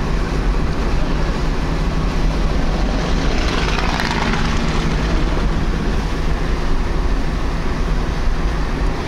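Steady low drone of a car's engine and tyres on a wet highway, heard from inside the cabin, with a swell of hiss about four seconds in.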